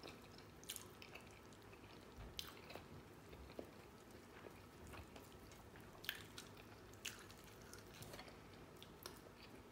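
Faint chewing of a burger: soft wet mouth clicks every second or so over near-silent room tone.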